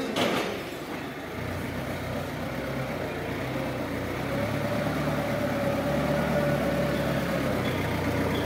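Counterbalance forklift engine running at low revs, building slightly, with a steady whine joining in about halfway through. A single knock right at the start.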